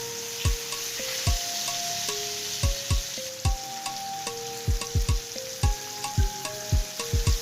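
Fish sizzling as it fries in hot oil, a steady hiss, under background music with deep booming kick drums, quick ticking hi-hats and a simple held melody. The kick drums are the loudest sounds.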